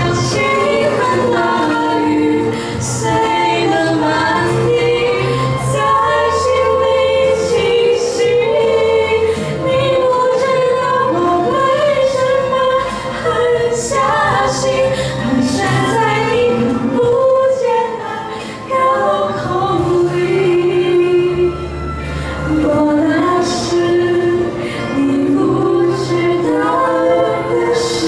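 Several girls singing a song together into handheld microphones, amplified through a PA, over an accompaniment with sustained low bass notes that change every couple of seconds.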